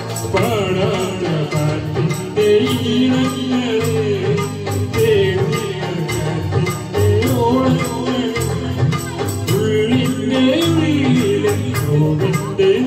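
Live song performance: a boy singing into a microphone over an amplified accompaniment, with rattling percussion keeping a steady beat.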